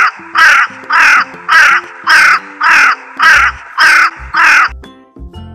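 Raven cawing: a run of about eight harsh, evenly spaced caws, a little under two a second, that stop about four and a half seconds in.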